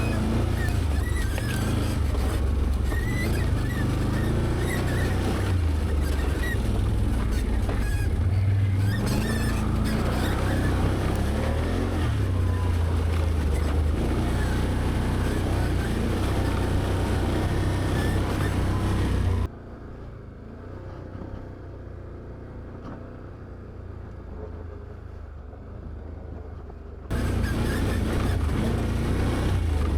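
Can-Am Outlander ATV engine running under load on a rough trail, its pitch rising and falling with the throttle. About two-thirds of the way in the sound drops suddenly to a much quieter level for several seconds, then returns just as suddenly.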